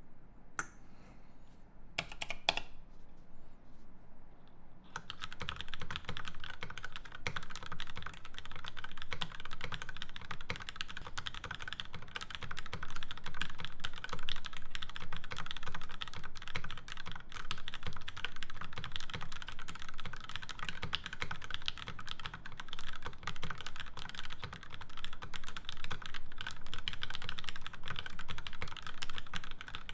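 Typing on a Percent Canoe Gen2 mechanical keyboard with lubed Cherry Hyperglide MX Black linear switches, a 3 mm aluminium plate and GMK keycaps. A few separate keystrokes come first, then fast continuous typing from about five seconds in.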